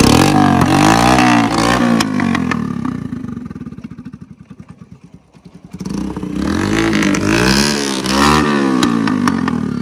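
Motorcycle engine revved in quick throttle blips that rise and fall in pitch. It drops back to a low idle about four seconds in, then is revved again in blips from about six seconds.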